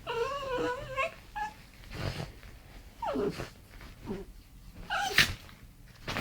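Rat terrier whining: a high, wavering whine through the first second, then several short whines that drop in pitch, and a sharp click about five seconds in.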